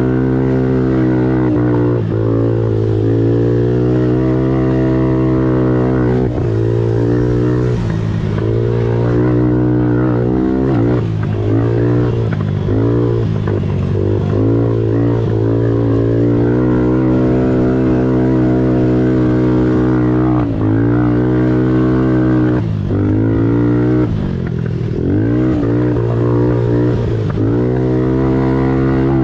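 Kawasaki KFX 90 youth quad's small single-cylinder four-stroke engine running hard through its CVT, recorded up close on the machine. The pitch holds mostly steady, then dips and climbs back several times as the throttle is eased off and reopened.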